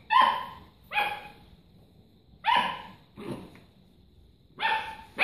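Puppy barking: four short, high barks, the first two about a second apart and the rest more spaced out.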